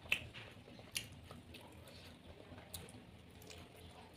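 Wet chewing of sauce-coated chicken, with mouth clicks and smacks; two sharp smacks, a moment in and about a second in, are the loudest sounds, with softer ticks after.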